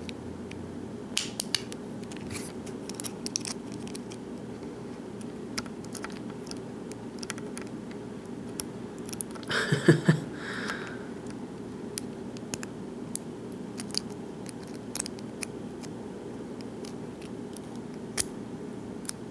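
Small, sharp metal clicks and light scraping as a tool works at a lock cylinder's C-clip retainer, trying to pry it off, with one louder scrape and knock about ten seconds in. A low steady hum lies underneath.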